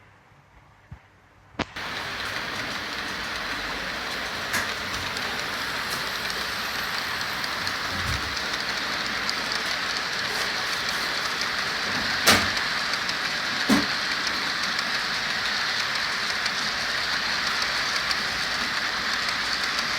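Freight train rolling past: a steady rush of wheel and running noise that starts abruptly about a second and a half in, with a few scattered knocks.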